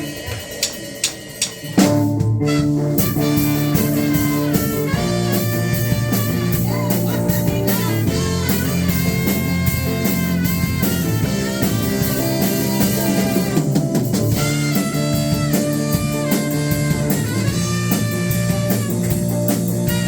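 Church worship band playing an instrumental passage on electric guitar and drum kit. Four quick clicks come first, then the full band comes in about two seconds in.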